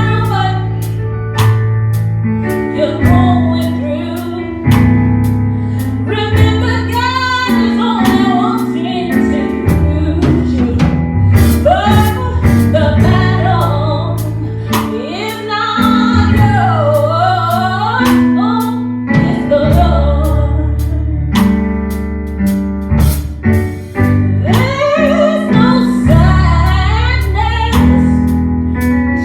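Gospel worship song performed live: a lead singer's melody over sustained low keyboard and bass chords, with a steady drum beat.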